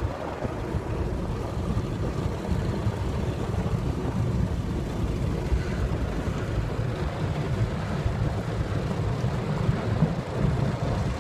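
Automatic car wash working over the car, heard muffled from inside the cabin: a steady low rumble of water spray and wash brushes.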